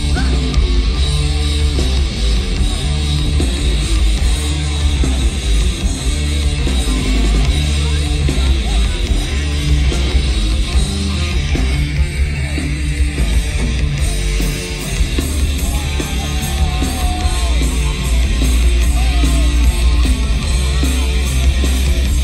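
A live rock band playing loud through a stage sound system, with electric guitars over a heavy, steady bass.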